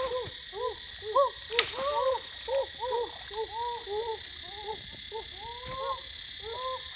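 A rapid, irregular chorus of short, arching animal calls, several overlapping, over a steady high hum, with one sharp click about a second and a half in.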